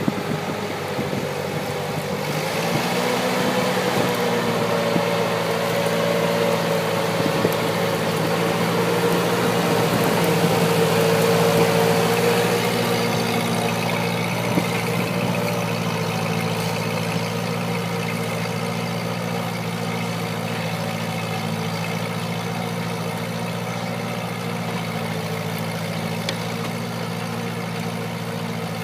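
1945 Ford 2N tractor's four-cylinder flathead engine running steadily under load while pulling a plow through the soil. It is louder for the first twelve seconds or so, then settles to an even note.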